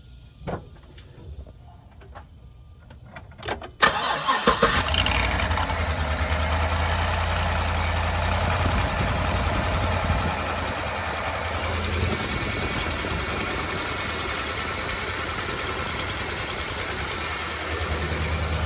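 Pickup truck engine cranked from cold, catching about four seconds in after a few faint clicks, then idling steadily. Near the end a deeper steady hum joins in.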